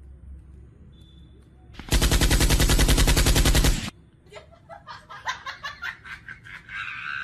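A burst of rapid automatic machine-gun fire, about two seconds of shots at roughly eight a second, very loud, starting and stopping abruptly. It is played as a prank sound effect, followed by irregular quieter knocks and scuffling.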